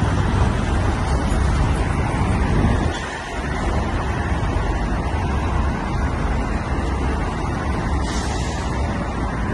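Road traffic noise: cars and SUVs driving past on a busy street, a steady rumble with a brief drop in level about three seconds in.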